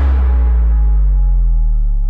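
Dramatic soundtrack music: a deep, low sustained tone rings on after a run of hits, held steady.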